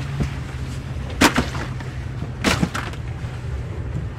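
Sharp knocks and thuds of a hard-sided Yeti cooler being handled and opened, one about a second in and another about two and a half seconds in, over the steady low hum of idling boat outboards.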